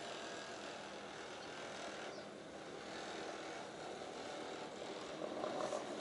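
Steady hiss of road traffic, with no distinct sounds standing out.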